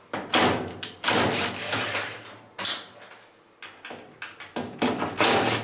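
Cordless drill-driver with a number two Phillips bit backing out the steel hinge screws of a dryer door, running in several short bursts with brief pauses between them.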